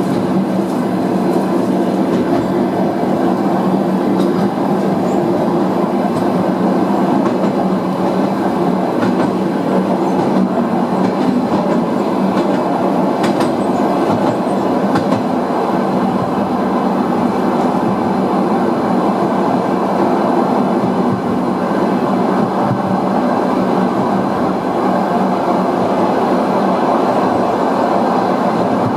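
Running noise of a moving passenger train heard from inside the carriage: a steady rumble of wheels on rail, with a few faint clicks near the middle.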